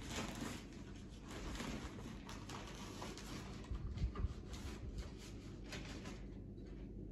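Soft, irregular rustling and tapping, with a dull thump about four seconds in, over a low steady hum; the tapping dies away in the last second.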